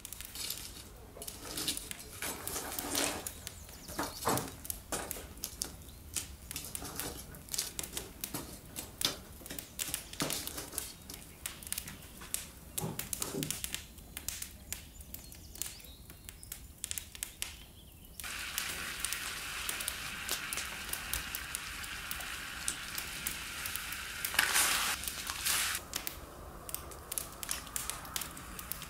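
Wood fire crackling and popping with scattered sharp snaps. About two-thirds of the way in this gives way to a steady hiss from a cast-iron pot of water over the fire, with a brief louder splash and clatter near the end as pork ribs go into the pot.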